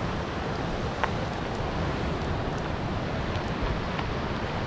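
Steady wash of sea surf on a rocky shore, with wind buffeting the microphone and giving a low rumble.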